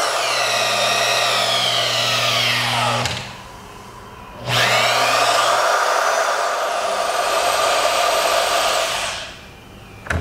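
AGP PF8 press-fitting tool's 550-watt electric motor driving the ram through a pressing cycle: its whine drops in pitch as it loads up and stops about three seconds in. It starts again about a second later and runs for about four and a half seconds as the ram returns, and a few sharp clicks follow at the very end.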